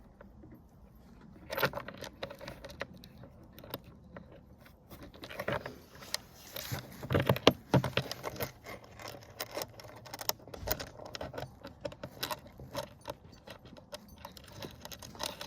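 Irregular light metallic clicks and jangling of small hardware being handled while a plate's last screw is put in, busiest about halfway through.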